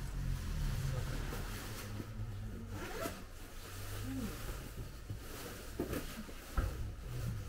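Steady low hum inside a Hakone Tozan cable car standing at a station, with faint scraping rustles and a few soft clicks.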